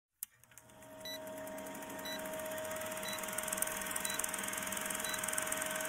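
Old-film countdown leader sound effect: a steady hum with film-projector-style clatter and crackle, and a short high beep about once a second. It starts with a click just after the start.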